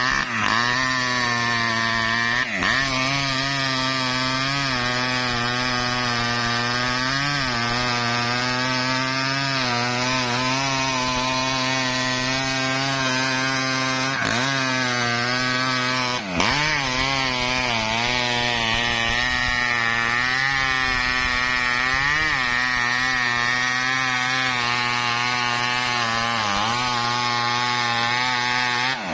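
Two-stroke chainsaw running at a steady high speed as it cuts through mahogany, with brief dips in engine speed about two seconds in and again past the middle.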